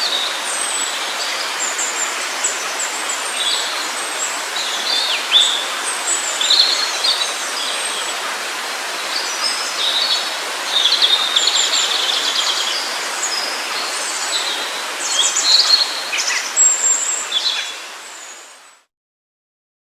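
Forest birds chirping and trilling over a steady rush of flowing water; the whole scene fades out to silence near the end.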